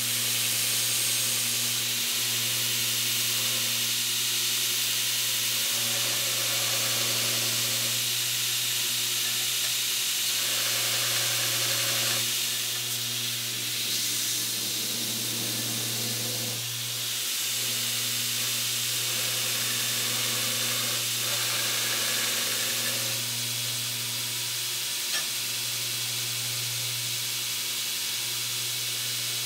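Belt grinder running, with a steel workpiece ground against the moving abrasive belt: a steady motor hum under a loud, even hiss of belt on metal. The hiss eases briefly a few times as the piece is shifted or lifted.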